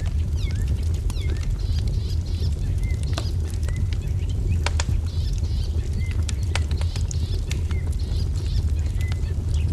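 Wood fire crackling, with sharp pops scattered throughout over a steady low rumble, mixed with small songbirds chirping: repeated short downward-sliding chirps and brief high trills.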